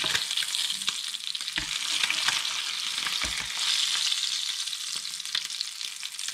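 Sea bass fillet sizzling steadily in hot butter and oil in a ridged grill pan, with a few soft knocks and scrapes of a slotted spatula against the pan as the fillet is lifted.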